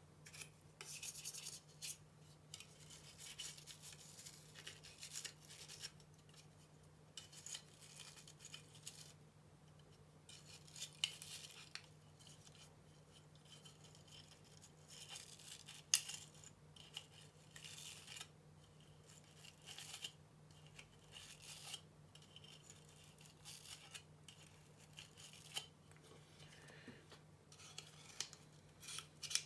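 Faint, intermittent scratching and rubbing of hands and small tools on the laptop's plastic and metal parts during disassembly and cleaning, over a steady low electrical hum.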